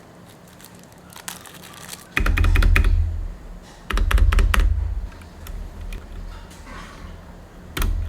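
Keys on an Akko 3087 mechanical keyboard with Cherry MX Brown tactile switches being pressed in three quick bursts of clacks, each with a low thump. The first burst is about two seconds in, the next at about four seconds, and the last near the end.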